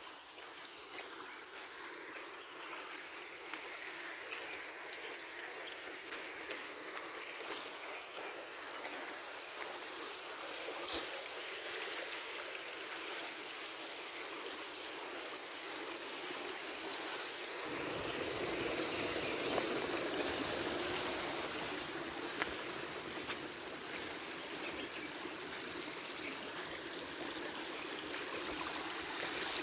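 Stream water running and trickling, with steady high insect calls over it. About two-thirds of the way in, the water sound grows fuller and deeper.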